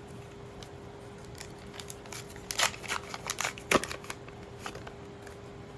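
A trading-card booster pack being torn open: the foil wrapper crackles and snaps in a cluster of sharp sounds over about three seconds, loudest in the middle, over a faint steady hum.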